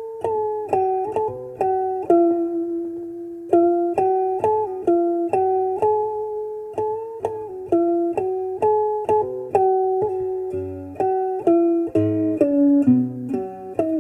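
Background music: a melody on a plucked string instrument, single notes each struck and then dying away. Low bass notes join in during the second half.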